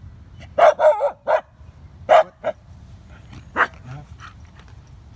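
Shiba Inu barking: three quick barks about half a second in, then a few more spaced out over the next two seconds.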